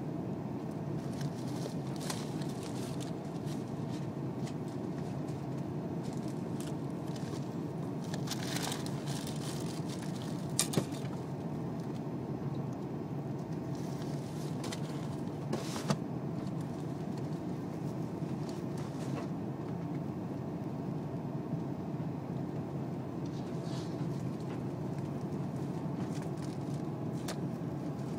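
Steady cabin roar inside an Airbus A330-300 on final approach: its Rolls-Royce Trent 700 engines at approach power and the rush of air past the airframe, heard from a window seat over the wing. A couple of short clicks come near the middle.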